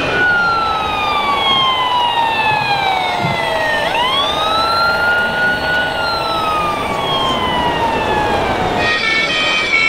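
Wail siren from an RC model fire truck's sound unit. It falls slowly in pitch, swoops back up about four seconds in, holds, then falls slowly again. Near the end it gives way to a quick run of stepped tones.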